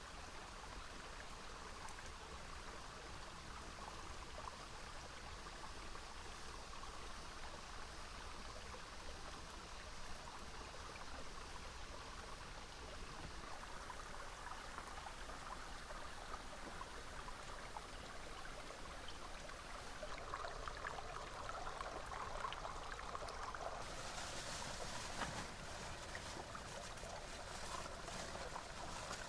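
Small rocky stream running steadily, a continuous rush and trickle of water that grows a little louder and brighter about two-thirds of the way through.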